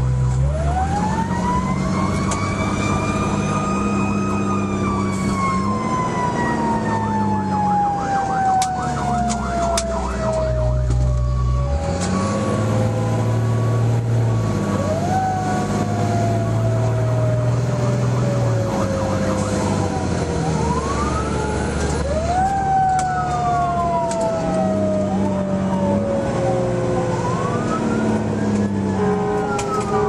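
Fire engine's siren wailing, heard from inside the cab: it winds up in pitch over a few seconds and then slowly falls, again and again, with shorter overlapping sweeps in the second half. The truck's engine runs steadily underneath.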